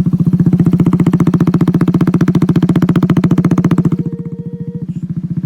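Kawasaki Z125 Pro's single-cylinder four-stroke engine running through a straight-pipe exhaust, a steady fast train of loud exhaust pulses. About four seconds in it turns quieter and duller.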